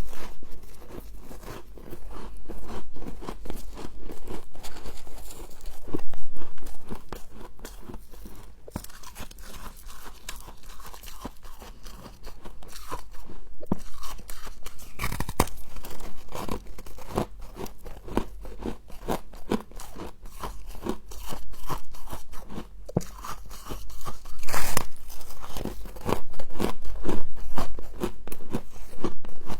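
Close-up crunching and chewing of humidifier frost: rapid, crackly bites follow one another, with a few louder crunches standing out along the way.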